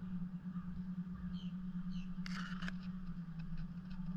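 A steady low hum under a few faint, short high chirps, with a brief rustling clatter a little over two seconds in.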